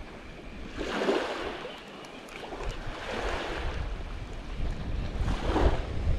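Small waves washing up on a sandy beach, three washes about two seconds apart, with wind rumbling on the microphone.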